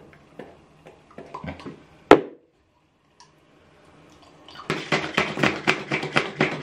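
Hand-pumped facial cleanser foam maker being worked: the plunger is pumped up and down through cleanser and water at about four strokes a second, whipping it into foam. Before that, a few small plastic clicks and one sharp click about two seconds in.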